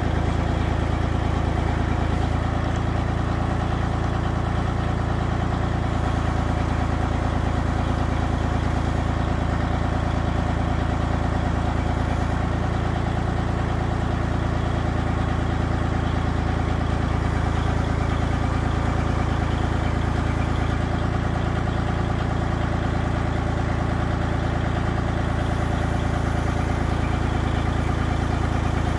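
An engine idling, its note holding steady throughout.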